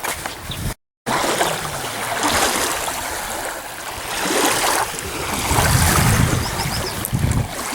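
Wind gusting across the microphone over waves lapping at the shore. The sound cuts out completely for a moment about a second in.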